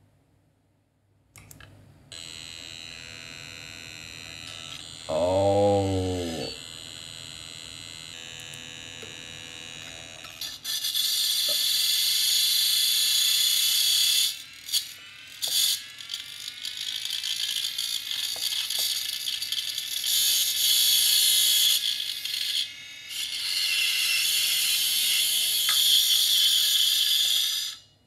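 Opened Quantum Fireball hard drive powered on: the spindle motor spins up and runs with a steady whine, with a brief louder buzz about five seconds in. From about ten seconds in a loud harsh scraping hiss with a few short breaks takes over, a read head grinding on the platters, which the owner traces to a badly scratched platter.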